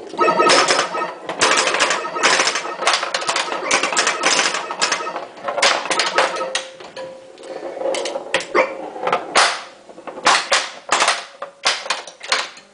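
Bally Voltan Escapes Cosmic Doom pinball machine in play: rapid clacks and knocks of the ball, flippers and bumpers, mixed with the machine's electronic tones. About halfway through the ball takes a hard airball off the playfield.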